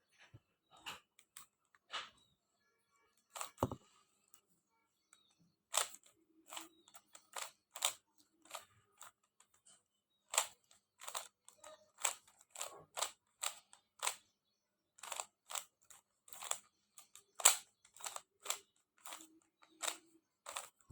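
A plastic 3x3 Rubik's cube being turned by hand: a series of sharp clicks as its layers snap round. The clicks are sparse at first, then come in quick runs of about two a second with short pauses between.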